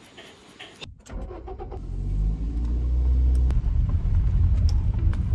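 Small car's engine heard from inside the cabin, coming in about a second in and growing louder with slowly rising pitch as the car accelerates away.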